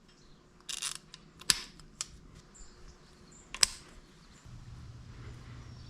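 Handling of hoses, parts and tools: a brief rustle and a few sharp clicks, two of them loud. About four and a half seconds in, a steady low hum starts.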